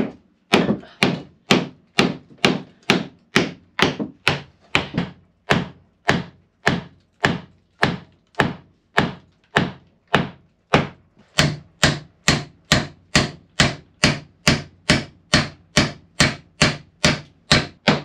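Hammer striking a wooden block against a new frame, driving it into a wooden boat's hull: a steady run of sharp wooden knocks, about two blows a second. The frame drags against the hull's old nails and goes in only with hard work.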